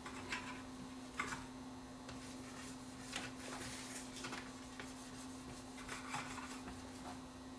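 Faint clicks and rustles of hands handling and rubbing a piece of equipment, over a steady low electrical hum.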